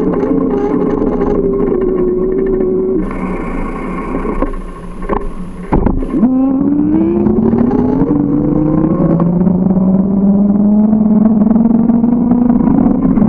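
A motor vehicle engine running close by. Its pitch sinks slightly and it drops away about three seconds in, leaving a quieter spell with a couple of sharp knocks. Then it picks up again, its pitch climbing steadily as it accelerates.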